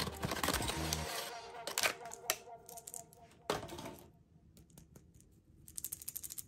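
Cardboard candy box handled and opened by hand: crackling, scraping and small clicks, with one sharper crack about halfway through. Background music fades out in the first second, and near the end comes a quick run of light clicking taps.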